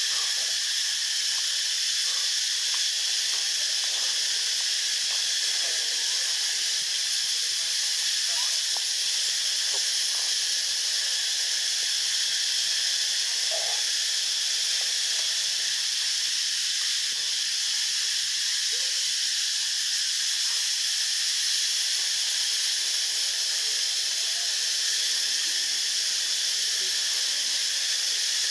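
A steady, even high-pitched hiss that doesn't change, with a few faint short squeaks underneath.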